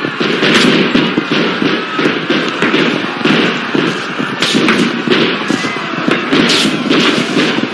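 Battle sound effects: scattered gunshots and thuds at irregular intervals over a dense, continuous din.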